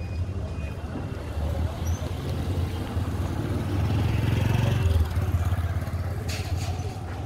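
Street traffic: a steady low engine rumble from passing cars and motorcycles, swelling about four to five seconds in as a vehicle goes by close.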